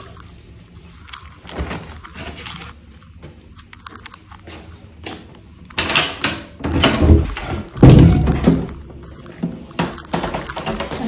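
Lock and metal lever handle of a wooden washroom door being worked, with clicks and then several heavy thunks from about six seconds in as the door is unlocked and opened.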